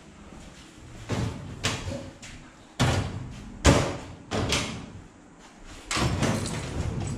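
A run of knocks and thuds, about half a dozen over five seconds, the loudest a little past the middle, followed by steady rustling and bumping from about six seconds in.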